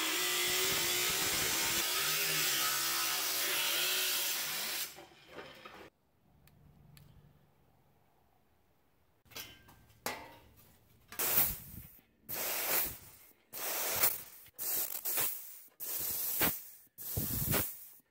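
Cordless angle grinder grinding sheet steel, winding down about five seconds in. After a short lull, a pneumatic punch/flange tool fires in about eight short bursts, roughly one a second, punching holes in thin galvanized sheet metal.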